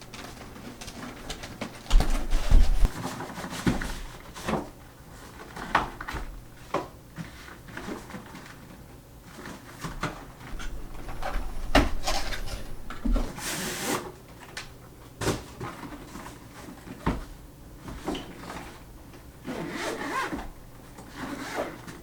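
Cardboard box and plastic packaging of a small FPV drone kit being opened and handled: irregular rubbing, rustling, clicks and knocks, with a few heavy bumps against the table and a loud rustle or tear near the middle.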